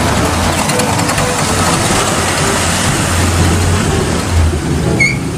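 Steady motor-vehicle engine and road noise, a low rumble under a constant hiss, like a bus driving by in traffic.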